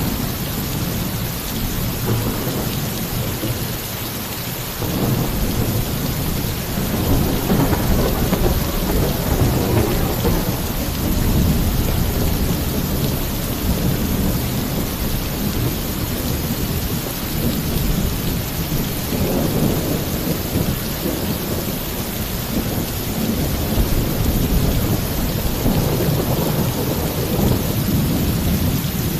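Heavy, steady rain falling on a roof, with thunder sounding in long, low rumbles several times.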